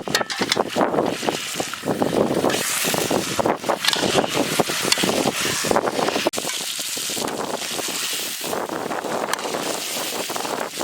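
Strong wind gusting across the microphone in an uneven rush, settling into a steadier blow about six seconds in.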